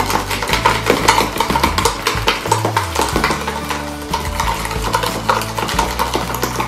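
Rapid, continuous clicking and scraping of a spoon beating dalgona coffee mixture in plastic tubs, two people whipping at once, over background music with steady bass notes.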